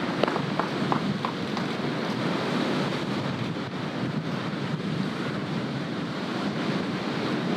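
A crowd applauding. Separate claps can be picked out in the first second or so, then merge into a steady, dense wash of clapping.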